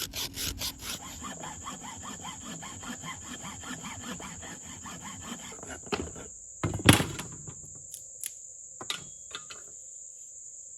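Rapid scraping strokes for the first five seconds or so, then a few sharp knocks, the loudest about seven seconds in. Crickets chirr steadily at a high pitch throughout.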